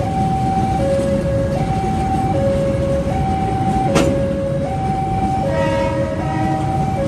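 Railway level-crossing warning siren sounding a two-tone alarm, switching between a lower and a higher pitch about every three quarters of a second, over a steady low rumble. A sharp click about four seconds in, and a brief horn-like tone with several overtones a little after five and a half seconds.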